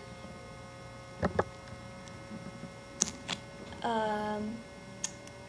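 A few sharp computer-mouse clicks over a steady electrical hum, with a brief hummed "mm" from a voice about four seconds in.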